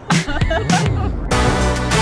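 A brief burst of voices, then background music with a deep bass and a steady beat cuts in about a second in.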